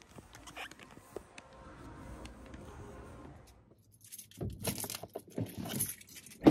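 Faint steady hum, then from about four seconds in a quick run of rustles and clicks from the camera being handled and set up inside a car, ending in one sharp knock.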